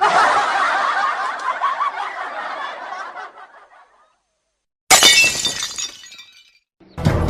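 Sound-effect clips: a burst of group laughter that fades away over about four seconds, then a sudden crash of breaking glass with a jangling tail about five seconds in.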